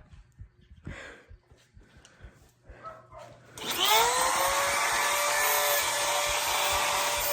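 A few light handling knocks, then about three and a half seconds in an electric power tool spins up with a rising whine and runs steadily at full speed.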